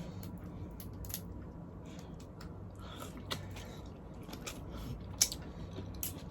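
Close-up eating of boiled seafood: chewing, with scattered small clicks and cracks, the sharpest about five seconds in.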